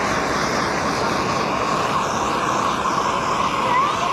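Handheld gas blowtorch burning with a steady hiss, with a faint high steady tone in it, as its flame singes the pin feathers off a plucked peacock carcass.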